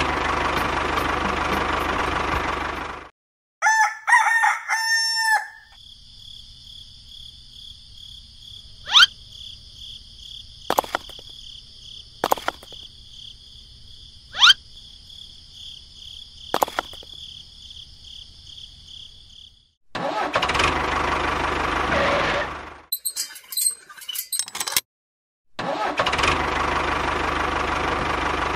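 A tractor engine running, cut off about three seconds in by a rooster crowing. Then comes a long quieter stretch of steady high ringing with several sharp clicks of miniature bricks being set down, and the engine comes back twice near the end.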